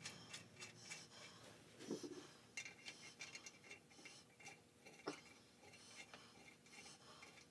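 Faint clicks and light metal taps as hand-made metal pilot pins are set into the head-stud holes of a Caterpillar Sixty's cylinders, with sharper knocks about two seconds in and again just after five seconds.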